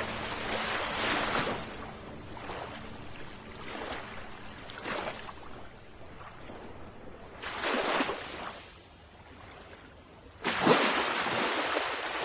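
Ocean waves washing in, one surge every two to four seconds. The loudest starts suddenly near the end.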